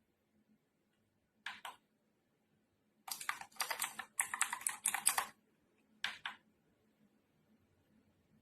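Typing on a mechanical keyboard with wine red switches and XDA-profile PBT keycaps: a couple of keystrokes about a second and a half in, a quick run of keystrokes from about three to five seconds, then a couple more near six seconds.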